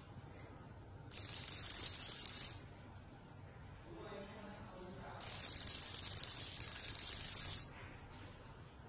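Xóc đĩa bowl-and-plate set being shaken twice, the four game pieces rattling against the ceramic inside the covered bowl: a short shake of about a second and a half, then a longer one of about two and a half seconds.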